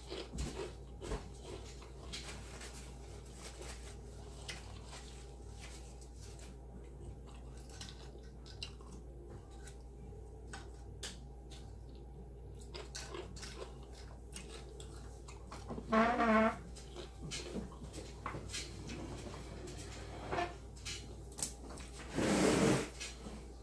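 A person chewing food close to the microphone, with many small wet mouth clicks, and two short hummed vocal sounds, one past the middle and one near the end.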